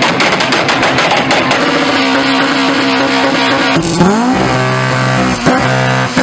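Car engine revving hard with a crackle early on, then held at steady high revs, with a quick rising rev about four seconds in.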